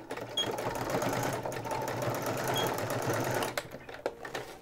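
Electric sewing machine running steadily as it stitches the overlapped ends of an elastic waistband together, stopping about three and a half seconds in, followed by a few light clicks.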